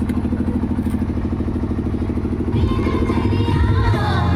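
Rapid, even thudding of an engine running, then about two and a half seconds in a song with singing and heavy bass comes in loud over it through a DJ sound system.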